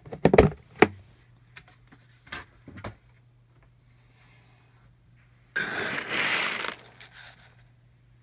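A snap-on plastic lid pried off a tub with a few sharp clicks and knocks, then dry navy beans rattling and shifting in the plastic tub for about a second.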